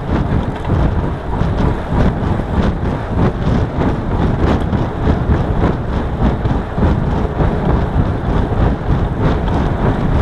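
Wind buffeting the microphone of a camera on a moving road bike: a steady, loud rumble.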